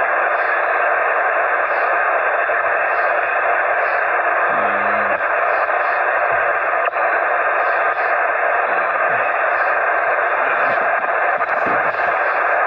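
Steady static hiss from an HF amateur radio transceiver's speaker on the 40-meter band: an open channel with band noise and no one transmitting.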